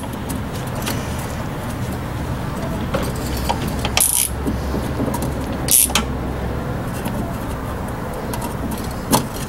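Metal hand tool clicking and scraping against a rear disc brake caliper piston as the piston is screwed back into its bore, with two short, loud scrapes about four and six seconds in. A steady low rumble runs underneath.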